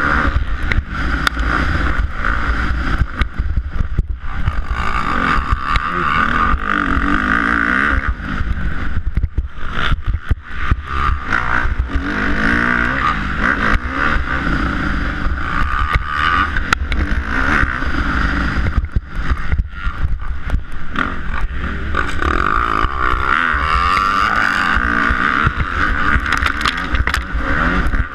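Kawasaki KX250F single-cylinder four-stroke motocross engine heard from on the bike under race riding, its note rising and falling over and over as the throttle is worked and gears change, with brief dips where the throttle is rolled off.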